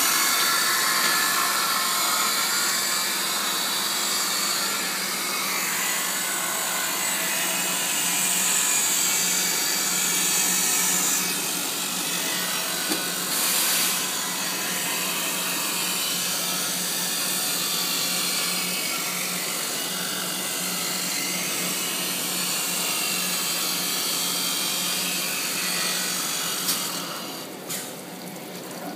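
Glass edge grinding machine running, its grinding wheel working the edge of a glass piece with a steady high grinding noise over a motor hum. The grinding drops away near the end.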